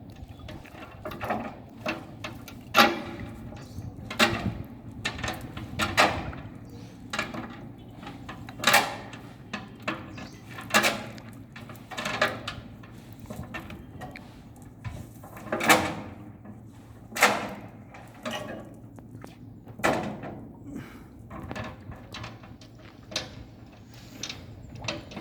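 Irregular splashing strokes in river water, one every second or two, from cast-net fishing.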